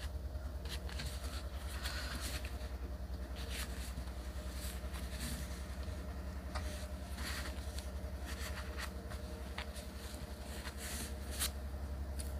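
Cotton fabric being handled and pinned by hand: soft rustles and short light scratches of cloth and pins, scattered through, over a steady low hum.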